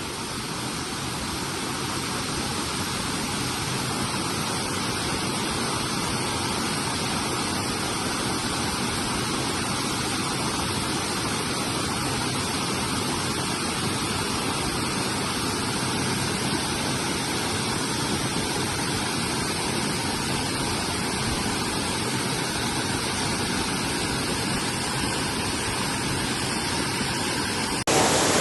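Steady rushing water of a waterfall, a continuous even roar that builds a little over the first few seconds and jumps louder just before the end.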